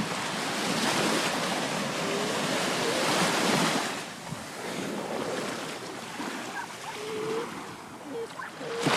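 Ocean surf washing in on the beach, the rush swelling over the first few seconds and then easing off.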